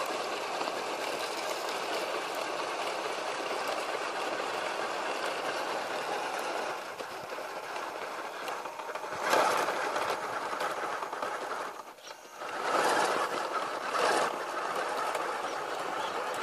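Electric motor and gear drivetrain of a 1/10-scale RC rock crawler whirring steadily as its tyres churn through loose dirt. It surges louder twice in the second half, with a short dip just before the second surge.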